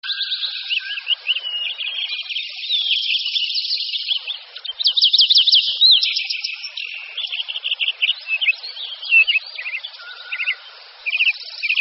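Birds singing and chirping, many quick notes and trills overlapping, with a fast run of repeated notes about five seconds in the loudest.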